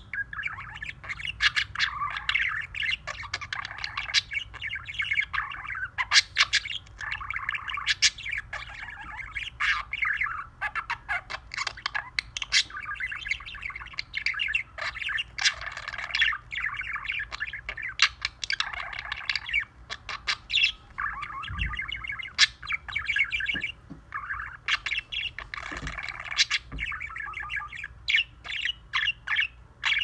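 Budgie warbling: a long run of fast, chattering song with sharp clicks and squawks mixed in, broken by a few short pauses.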